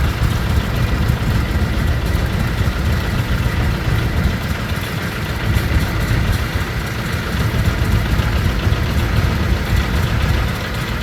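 John Deere 820 tractor engine running steadily at low speed as it drives past in a parade, a continuous low rumble that eases slightly near the end.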